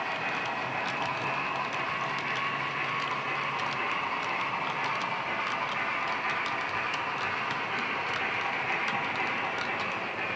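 Model railway freight wagons rolling along the layout track: a steady rattling run with scattered clicks at the rail joints.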